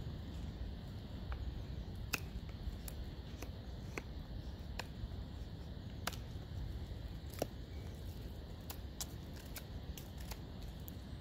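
BPS B1 bushcraft knife shaving thin feather-stick curls down a wooden stick: a string of short, sharp snicks, one per stroke, about a second apart and coming quicker near the end.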